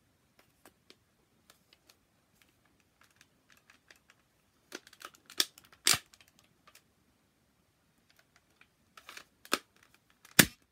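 Plastic clicks and rattles of a Power Rangers RPM foam dart blaster toy being handled as foam darts are loaded into it: scattered light ticks, a few louder clicks about five to six seconds in, and a sharp snap just before the end as a part clicks into place.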